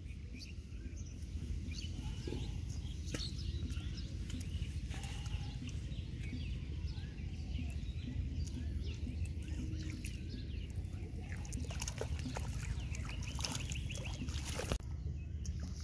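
Hands splashing and sloshing in shallow, muddy paddy water, with irregular small splashes and drips over a steady low rumble.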